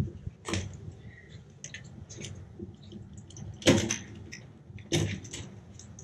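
Hand work on an air-conditioner condenser unit while wires are unplugged from its high-pressure switch: a few sharp clicks and knocks, about half a second in, the loudest about three and a half seconds in, and another about five seconds in, with light metallic ticking between.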